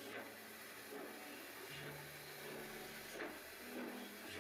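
A few spaced puffs of steam locomotive exhaust, a dubbed-in sound effect, over faint background music with low held notes that change every second or so.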